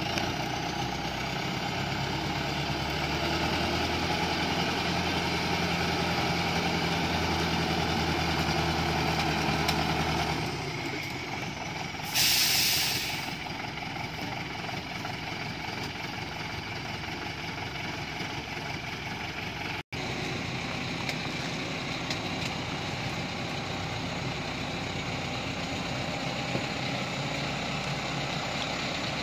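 A light diesel truck's engine running under load in deep mud, then easing to a lower, quieter run about ten seconds in. Soon after comes one loud hiss of air lasting about a second, an air-brake release.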